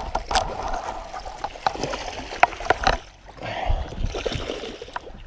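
Water splashing and trickling, with scattered sharp clicks and knocks, as a freshly hooked bass is handled at the side of a fishing boat.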